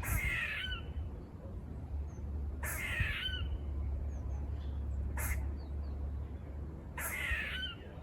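Squirrel barking: three harsh, rasping calls, each about half a second long, at the start, about three seconds in and about seven seconds in. A single sharp click falls about five seconds in.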